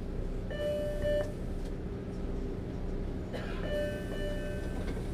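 Subway train running, a steady low rumble inside the car. A held high tone sounds about half a second in, and two more short tones follow past the three-second mark.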